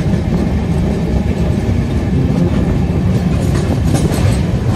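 Passenger train running over a river rail bridge: a loud, steady rumble of coach wheels on the track with light clatter.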